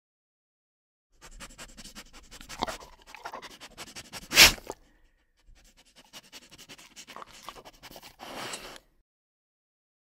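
A dog's scratchy, snuffling noises in two irregular stretches, starting about a second in, with one loud sharp burst about four and a half seconds in.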